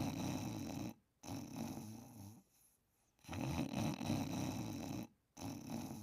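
Snoring in slow, regular breaths: a long, loud rasping snore, a brief break, then a shorter, quieter one, followed by a pause of about a second before the cycle repeats.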